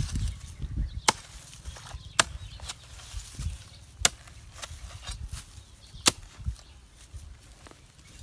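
A hoe's metal blade chopping into dry dirt: four sharp strikes about one to two seconds apart, with duller thuds of loosened earth between them.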